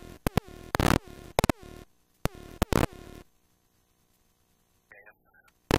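Loud crackling and clicking static on the airplane's headset radio and intercom audio. It breaks off about three seconds in to near silence, with a single sharp click near the end.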